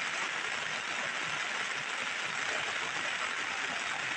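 Heavy rain falling steadily on a clear plastic umbrella and wet ground.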